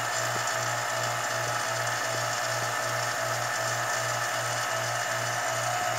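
Vacuum pump running steadily as it holds vacuum on a resin infusion bag, a constant mechanical hum with a low pulse about two and a half times a second.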